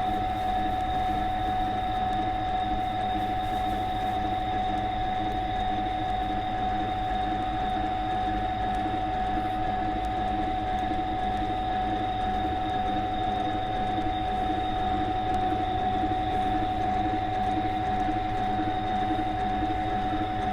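Water grinder with a stone wheel running steadily, an even motor hum with a constant whine.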